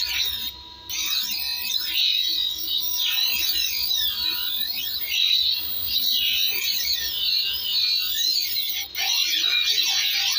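Bench grinder wheel grinding a steel blade shaped from an old file: a high squeal that wavers up and down in pitch as the blade is pressed and moved across the wheel, dipping briefly about half a second in.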